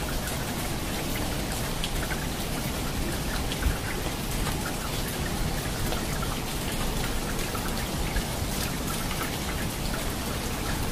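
Steady rain, with many close drops hitting a hard surface. One brief, louder thump comes about three and a half seconds in.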